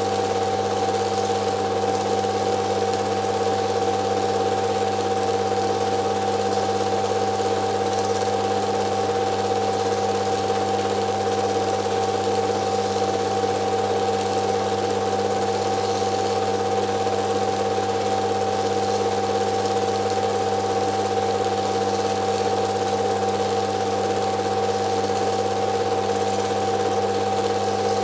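A film projector running: a steady mechanical whir and hum over a constant hiss.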